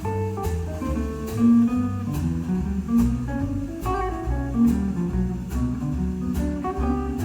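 Instrumental music with a plucked melody, a walking bass line and a steady beat, played back through a Cambridge Audio One system with Q Acoustics 3010 bookshelf speakers and a 3070s subwoofer, heard through a microphone in the room.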